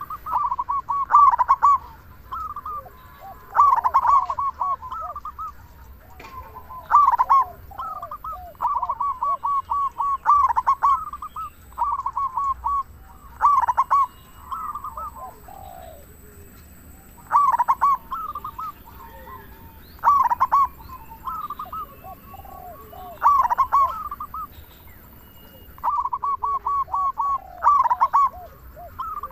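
Zebra dove (perkutut) singing its cooing song: phrases of quick staccato notes with short rising coos, repeated every few seconds.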